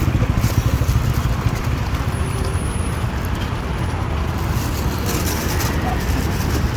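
Steady low rumble of outdoor background noise, with no distinct chopping strokes.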